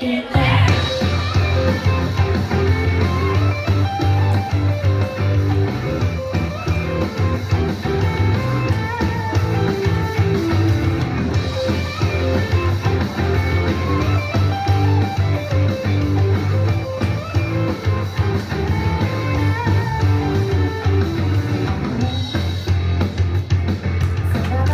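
Loud, steady rock-style pop music for a dance number, carried by guitar over a drum kit and a strong bass line.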